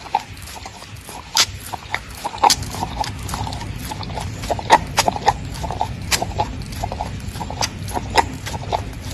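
Small dog licking ice cream out of a paper cup: wet lapping and smacking clicks of the tongue, several a second at an uneven pace.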